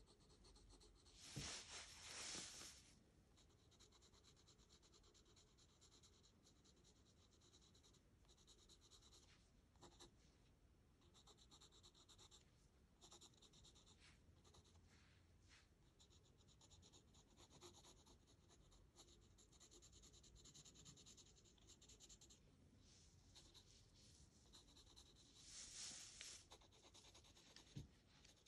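Graphite pencil shading on sketchbook paper: quiet scratching of quick, repeated hatching strokes, with two louder spells of scratching, about two seconds in and near the end.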